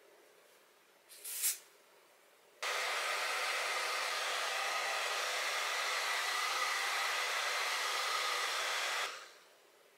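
A short hiss from an aerosol can of lace glue spray about a second in. Then a handheld hair dryer switches on and blows steadily for about six seconds, drying the sprayed glue to a tacky set, and switches off near the end.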